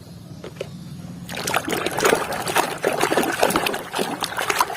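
Water splashing and trickling as a toy vehicle is washed, starting about a second in and going on irregularly.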